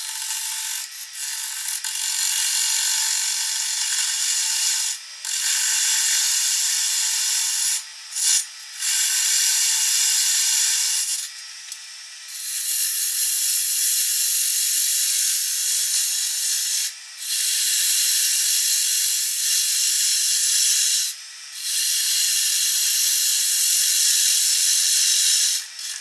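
Parting tool cutting grooves into a spinning cedar blank on a wood lathe: a loud, harsh scraping hiss in stretches of a few seconds, broken by short pauses.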